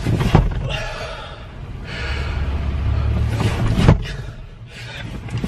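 A man's loud, distorted shouting with two sharp thumps of blows on a car seat, one just after the start and one about four seconds in.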